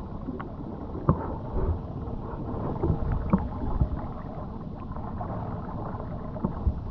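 Steady low rumble and water noise from a small jon boat moving slowly on the water, with a few light knocks.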